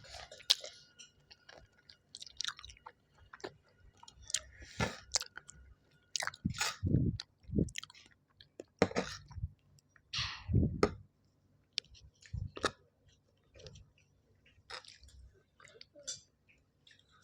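A person chewing and biting food close to the microphone, in irregular bites and chews, with a few louder, deeper ones about seven and ten seconds in.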